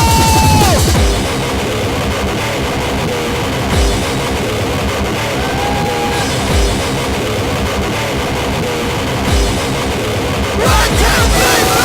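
Heavy metal music with distorted guitar and a pounding drum kit.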